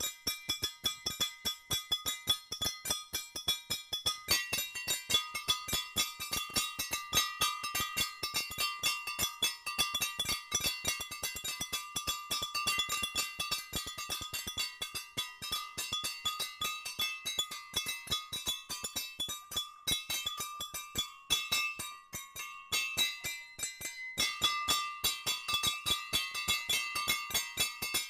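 Hand-held metal percussion being struck in a fast, steady rhythm: a dense run of sharp metallic clinks with ringing tones, the pitches shifting about four seconds in and again near the end.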